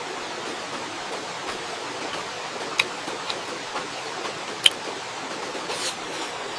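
Steady rushing of flowing river water, an even hiss, with a few faint crisp clicks scattered through it; the sharpest click comes about two-thirds of the way in.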